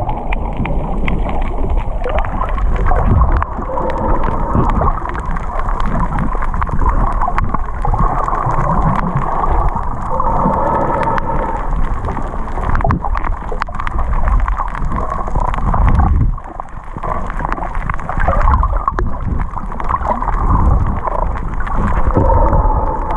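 Muffled underwater sound picked up through an action camera's waterproof housing: a steady low rumble of moving water with gurgling, over a faint wavering hum.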